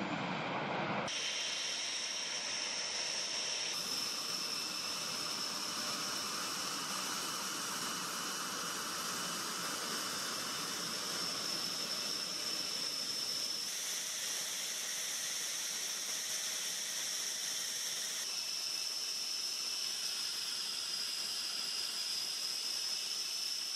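Panavia Tornado GR4 jet running on the ground: a steady high-pitched turbine whine over a constant hiss. The whine shifts slightly in pitch and level a few times.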